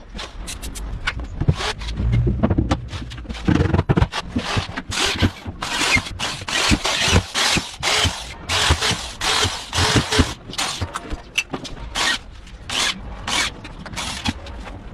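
A hand tool scraping on wood in quick, irregular strokes, roughly two to three a second, with a few dull knocks in the first seconds.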